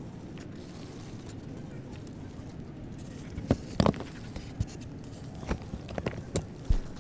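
Blocks of reformed gym chalk and cornstarch clacking and scraping against each other as a hand handles them, a run of sharp knocks starting about halfway through, the loudest a little before the middle of that run.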